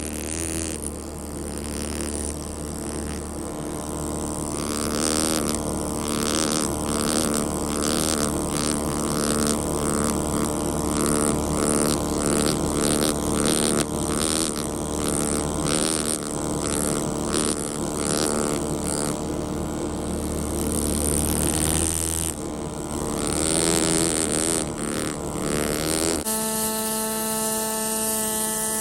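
Pneumatic fossil-preparation air tool running with a steady buzzing drone and irregular crackle as it works the stone away from an ammonite. Near the end the sound cuts abruptly to a cleaner, steady hum.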